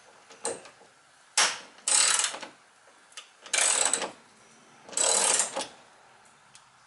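Socket ratchet clicking in four or five short runs, each about half a second long, as it tightens a hood gas-strut ball stud with an 11 mm socket.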